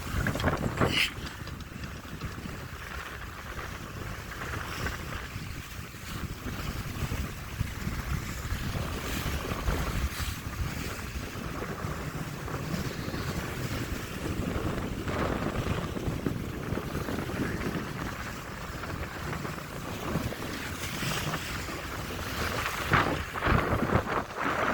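Wind buffeting the microphone over the steady wash of water along the hull of an Etap 38i sailing yacht beating upwind in a light breeze. A few louder splashes come near the start and near the end.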